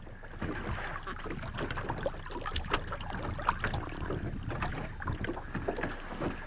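Water splashing and slapping at the side of a small boat as a hand works at the surface, in irregular short splashes and knocks over a steady low rumble.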